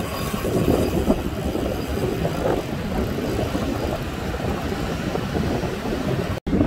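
Wind buffeting the microphone over the rush of surf breaking on the beach. The sound cuts out for an instant near the end.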